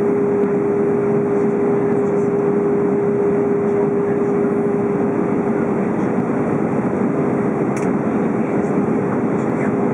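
Airbus A320 cabin noise on approach: a steady rush of engine and airflow noise with a constant mid-pitched hum running through it.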